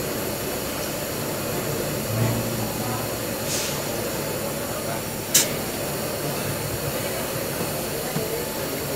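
Two short hisses of compressed air from the solenoid valve on a double-acting pneumatic valve actuator, about three and a half and five and a half seconds in, the second with a sharp click, over steady industrial machinery noise.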